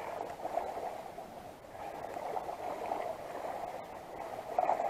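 Sea water sloshing and gurgling among concrete breakwater blocks, an uneven washing that swells and eases.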